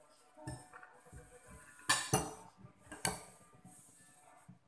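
Cutlery clinking against dishes in a few sharp strikes, the loudest about two and three seconds in.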